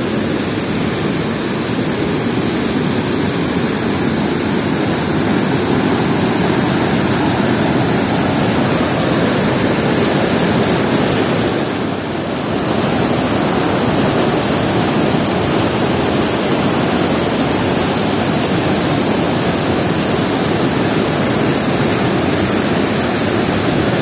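Fast white-water mountain river rushing over rocks and a dam weir, a loud steady roar of water with a brief dip in level about halfway through.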